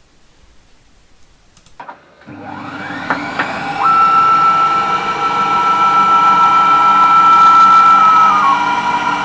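CNC milling machine spindle starting up and spinning up, its whine rising in pitch over a second or two. It then runs steadily with a strong high whine that steps down in pitch near the end.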